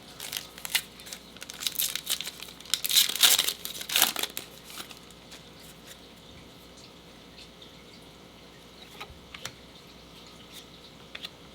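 A foil trading-card pack wrapper being torn open and crinkled, in dense crackly bursts for the first five seconds or so, loudest about three to four seconds in, followed by a few faint clicks as the cards are handled.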